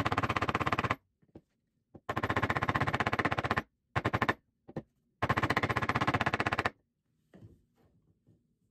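Claw hammer striking a wooden block in very fast runs of blows, three long runs and a short one with brief pauses between, driving a tight plastic desk grommet down into its hole in the desk.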